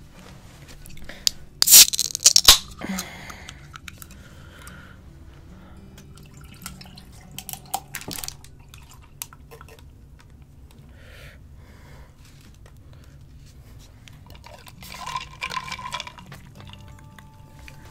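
Aluminium drink can cracked open by its pull tab about two seconds in, with a short hiss. Around eight seconds in, canned coffee is poured into a glass jar of ice, and near the end the coffee is sipped through a straw.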